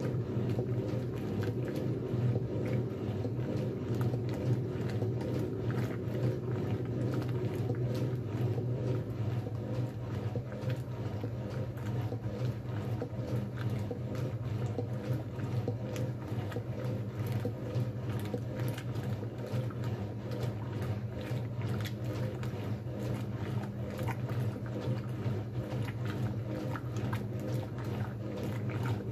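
1957 Blackstone 350 automatic washer in its wash agitation: a steady low motor-and-transmission hum under the sloshing and splashing of sudsy water and clothes in the stainless tub.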